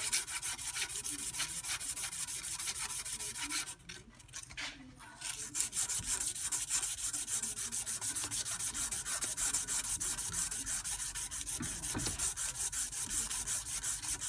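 A strip of 240-grit sandpaper is worked back and forth around a Tecumseh Snow King crankshaft journal in quick, even strokes, a steady rhythmic rasp. This is hand-polishing out the grooves in the journal. The sanding breaks off for about a second and a half around four seconds in, then carries on.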